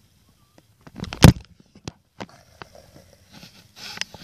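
Handling noise on a phone's microphone as it is swung about. There is a loud knock about a second in and a few lighter clicks, then a breathy rustling near the end.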